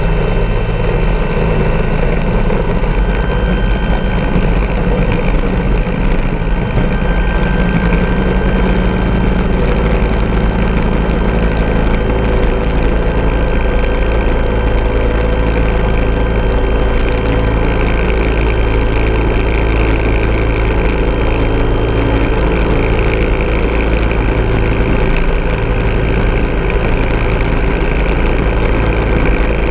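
Bell 412 helicopter in flight: its twin turbines and rotors make a steady, loud drone, heard from a camera mounted on the tail boom.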